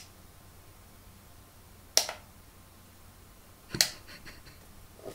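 Two sharp clicks of a small table lamp's switch, about two seconds apart, as the lamp is switched on and off.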